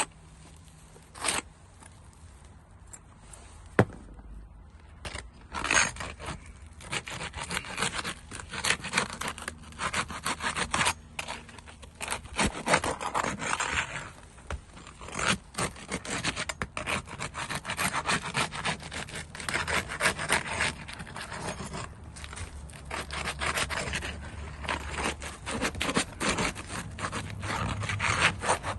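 A roof shingle being scraped and worked loose with a hand tool for replacement: two sharp knocks in the first few seconds, then continuous rapid scraping and rubbing strokes.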